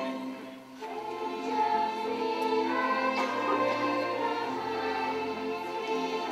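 Mixed choir of adults and children singing a Christmas cantata piece over instrumental accompaniment, in long held notes. There is a short dip just under a second in before the next phrase comes in.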